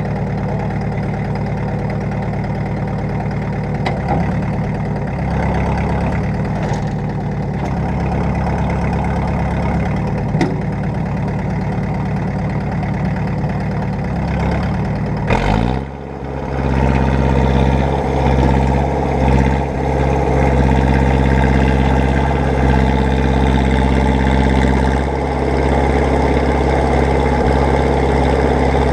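Tractor engine idling steadily. About halfway through its pitch sweeps and the sound dips for a moment, then an engine runs on steadily and louder.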